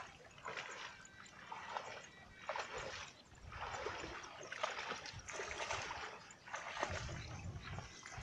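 Legs wading through shallow, muddy floodwater, the water sloshing and splashing in uneven surges about once a second.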